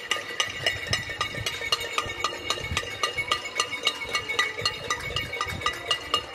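Music: a quick, even run of struck metallic notes, about four a second, with the pitch moving from note to note.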